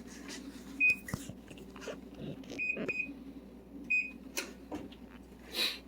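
A kitchen appliance's electronic beeper giving four short high beeps at uneven spacing, with scattered clicks and knocks of kitchen handling.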